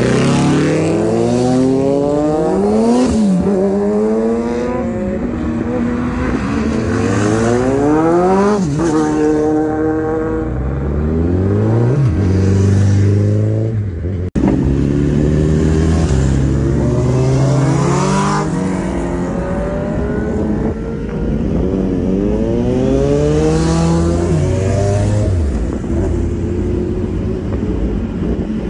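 A pack of sport motorcycles accelerating hard past, one after another. Their engines rev up in rising sweeps that drop back at each upshift, several bikes overlapping, with a brief break about halfway through.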